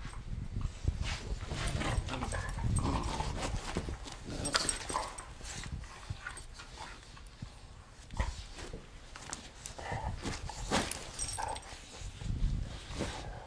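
Two German shorthaired pointers, an adult and a puppy, play-fighting on a dog bed: irregular scuffling and rustling of bedding with short, scattered dog vocalisations.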